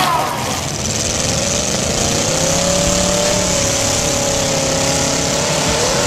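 Demolition derby car engine revving hard: its pitch climbs over the first couple of seconds, holds high, then eases off near the end.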